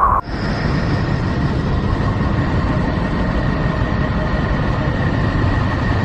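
Space data from Saturn's system turned into sound: a steady, dense rumbling hiss with a faint thin whistle held above it.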